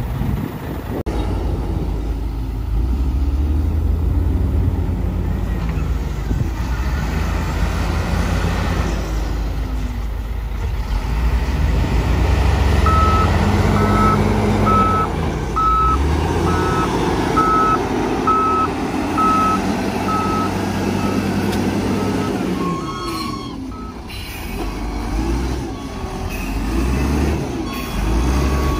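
Heavy diesel engines of a dump truck and a wheel loader running and revving. A reversing alarm beeps steadily, about one and a half beeps a second, for roughly ten seconds in the middle.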